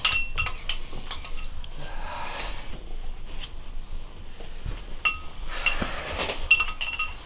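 Metal spoon clinking against a ceramic bowl: a scatter of light clinks and taps, some ringing briefly, busiest in the second half.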